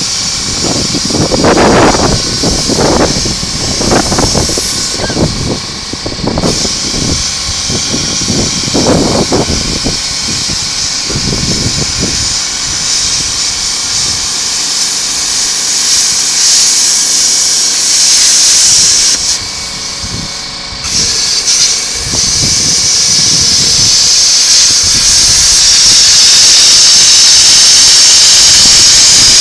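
Angle grinder with a cutoff wheel cutting through the steel shell of a scroll compressor, a loud steady hissing grind. It breaks off briefly about six and twenty seconds in, with uneven thumps in the first dozen seconds.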